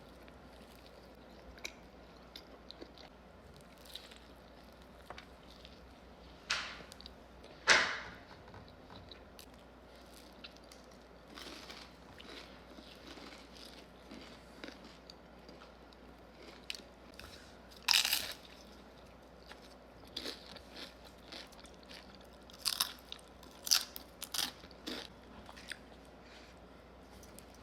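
Close-miked mukbang eating of sushi: chewing with small mouth clicks, broken by several loud bites about 7, 18 and 23 to 25 seconds in.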